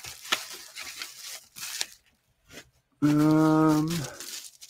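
Bubble wrap crinkling and crackling as it is pulled off a knife by hand, then about three seconds in a steady, pitched hum lasting about a second, the loudest sound, dipping slightly in pitch as it stops.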